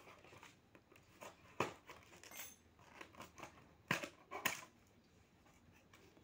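A cardboard toy box being handled and its end flap pried open: soft scraping and rustling of card, with three sharp snaps, the last two close together.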